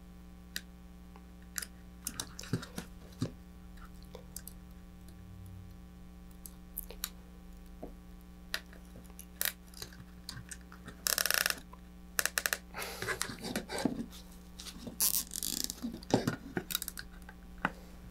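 Nylon zip ties being pulled tight through their ratchet heads, with short zipping rattles about 11 and 15 seconds in, among light clicks from handling the ties and the fiberglass board.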